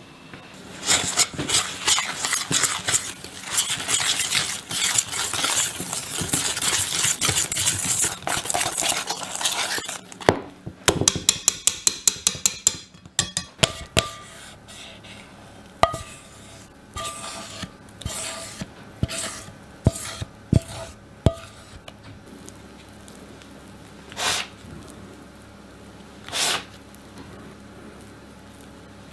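A utensil stirring a flour and butter mixture in a stainless steel mixing bowl, with about ten seconds of rapid scraping strokes against the metal. Then a quick run of clicks and a series of separate clinks against the bowl, each ringing briefly. Near the end come two soft swishes.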